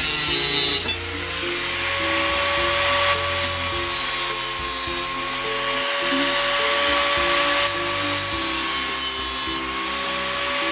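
Electric angle grinder running at speed with a steady high whine, with two stretches of harsher grinding on steel, one about three seconds in and one near eight seconds.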